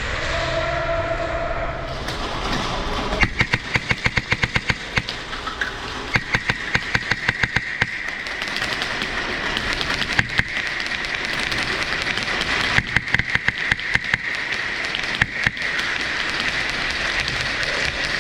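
Airsoft gun firing quick strings of shots, about seven a second, in two runs of a couple of seconds each, then single shots and short strings. A steady high tone sounds underneath.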